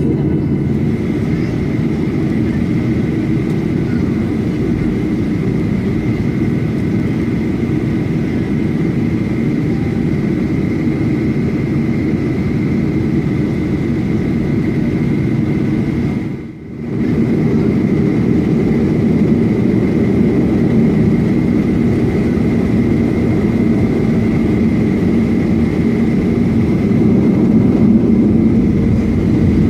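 Boeing 737-800's jet engines at takeoff power, heard from inside the passenger cabin: a dense, steady low rumble with a steady high whine above it. The sound drops out briefly just past halfway, then comes back a little louder toward the end.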